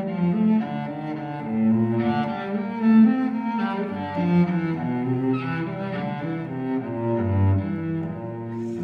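Background music: a melody of held notes on bowed low strings, cello-like, moving from note to note every half second or so.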